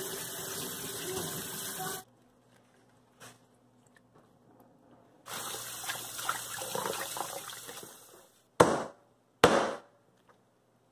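Kitchen tap running onto greens as they are rinsed by hand in a stainless steel sink; it stops suddenly about two seconds in. After a few seconds of quiet the tap runs again into a plastic bowl of greens for about three seconds. Near the end come two sharp knocks about a second apart, a knife striking a wooden cutting board.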